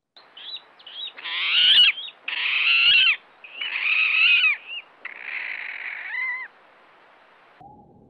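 Water rail piglet-like squealing: a few faint distant squeals first, then the rail close by answers with four loud squealing calls of about a second each, bending down in pitch, the last one weaker.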